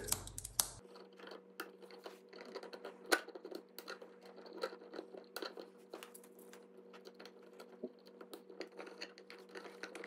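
Faint scratching and small clicks of bare copper ground wires being handled and clamped into a WAGO 221 lever nut to make a ground pigtail, with a sharper click about three seconds in.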